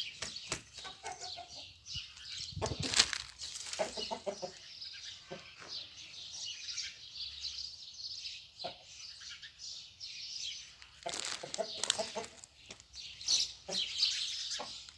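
A Shamo rooster flapping its wings in a few bursts, the loudest about three seconds in, with short rooster calls around four seconds in and again near eleven seconds. Small birds chirp in the background throughout.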